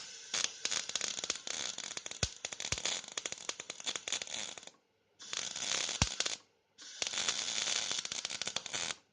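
MIG welding arc from a Tesla MIG 290 inverter welder, crackling densely in three runs: a long one of nearly five seconds, a short one, then another of about two seconds, with brief stops between as the torch trigger is released.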